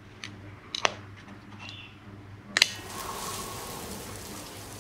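Hands handling a small music box and its tin: soft rustles and small clicks, a double click just before a second in, and a sharper click about two and a half seconds in. A steady hiss follows the sharp click.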